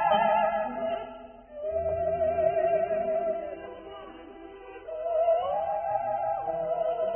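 Opera music: a high operatic voice sings long held notes with a wide vibrato, in phrases with short breaks between them.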